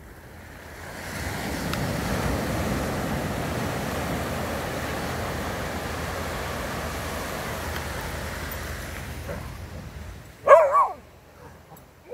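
Steady wash of ocean surf, then a dog barks twice in quick succession near the end.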